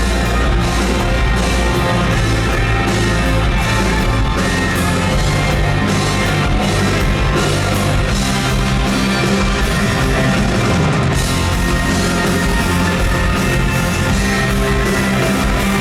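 Live band playing a rock arrangement, with drum kit and electric guitar over a steady beat.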